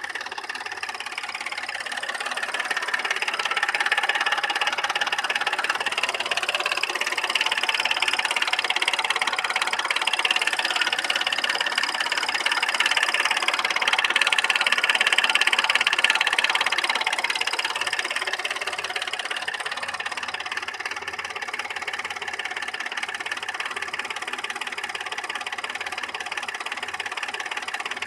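Audi A6 C6 3.2 FSI V6 engine running with a rapid knock, getting louder for a stretch in the middle before settling back. The engine also lacks power and misfires, and the owner does not know the cause of the knock.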